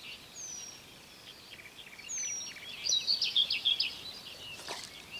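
Songbirds calling in riverside vegetation: short high whistles that slide downward, and a quick run of chirps about three seconds in, over a faint steady hiss. A brief knock sounds near the end.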